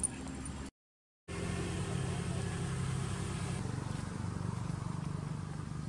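Steady low hum of a motor vehicle's engine running. It cuts out for about half a second just before the one-second mark, then resumes a little louder.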